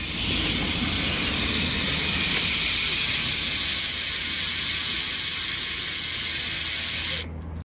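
Profile Elite BMX rear cassette hub freewheeling as the wheel spins, its ratchet clicking so fast that it makes a steady high buzz. The buzz stops shortly before the end.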